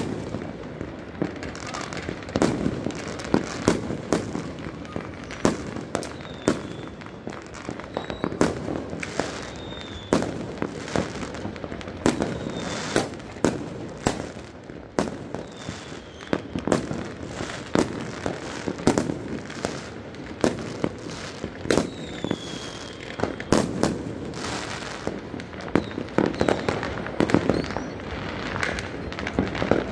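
Many fireworks and firecrackers going off from many places at once: a sharp bang every second or so over continuous crackling and popping, with a few faint whistles.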